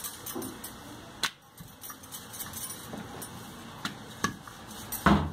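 Wooden rolling pin rolling poori dough on a marble rolling board: a soft steady rolling with a few light clicks, and a louder knock near the end.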